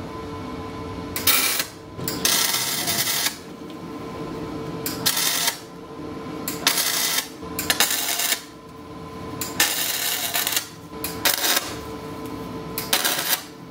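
Arc welder laying short tack welds: about eight separate bursts of crackling arc, each under about a second, with short pauses between.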